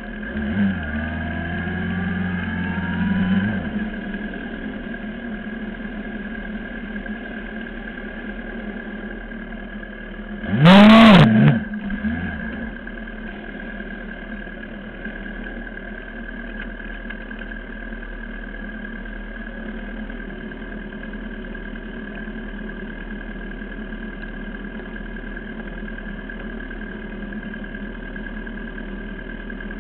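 Racing motorcycle engine idling steadily as the bike rolls to a stop, with a rising rev in the first few seconds and one sharp throttle blip about eleven seconds in.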